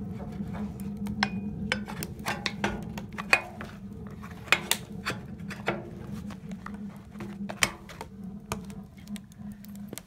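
Irregular metal clinks and clanks as the steel cover is handled and fitted back onto the feed opening of a welded steel rocket stove, over a steady low hum.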